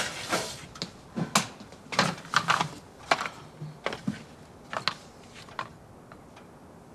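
A string of light, irregular knocks and footsteps that die away after about five and a half seconds: someone coming down an aluminium stepladder and handling picture frames.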